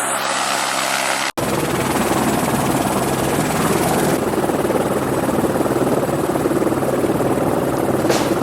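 Helicopter rotor and turbine noise, a loud steady drone, cut off for an instant about a second in and then continuing.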